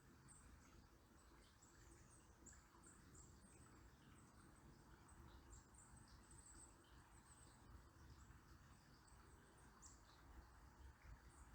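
Faint, very high-pitched short bird chirps scattered throughout, over a soft steady murmur of flowing river water.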